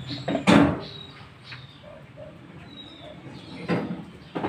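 Pool balls clack once sharply about half a second in on a billiard table, with a few fainter knocks later. Birds call in the background, including soft low coos and a brief high chirp.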